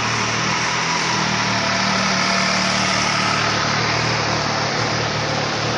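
MV Agusta Brutale 800's three-cylinder engine running steadily at idle, sounding healthy: a used engine in good running order.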